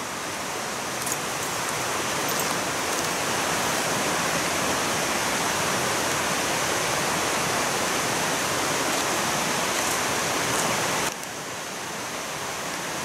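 Steady rushing of a fast-flowing creek, dropping slightly in level about eleven seconds in.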